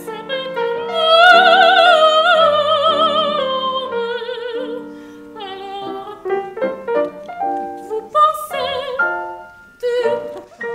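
Soprano singing in operatic style with wide vibrato, accompanied by grand piano. About a second in she holds a long, loud note that slowly falls, then sings a run of shorter phrases.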